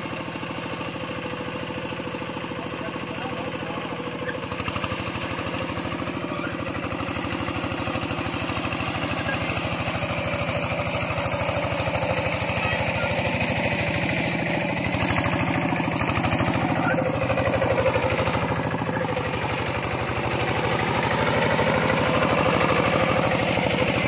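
Two-wheel hand tractor's engine running steadily as the machine pulls its cage wheels through a flooded rice paddy, growing somewhat louder partway through.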